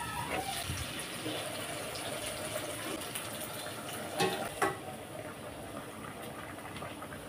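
Soup boiling in a stainless steel pot, a steady bubbling hiss; about four seconds in, two sharp clinks of a metal spoon against the pot.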